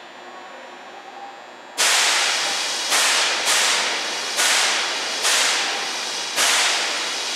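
Nagoya Municipal Subway 2000 series train venting compressed air in six sharp hisses, each starting suddenly and fading over about a second, as its air-operated equipment is worked during the pre-service inspection.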